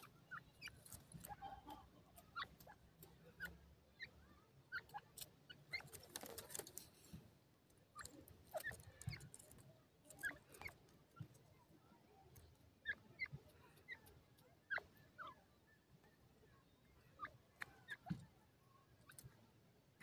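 Grey francolins foraging, giving faint, scattered short chirps among light ticks and clicks.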